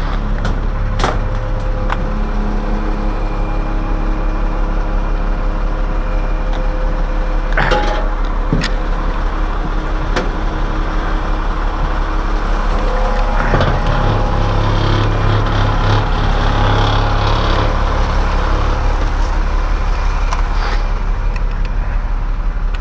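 An engine running steadily, with a few sharp knocks on top; its low hum grows stronger about fourteen seconds in.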